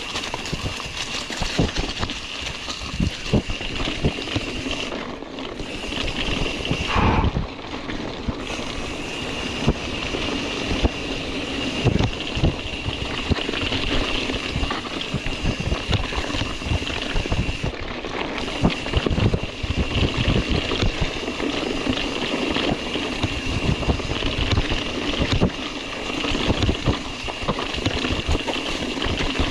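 Mountain bike riding over a rough dirt trail: wind rushing on the microphone, with constant irregular knocks and rattles as the bike jolts over bumps.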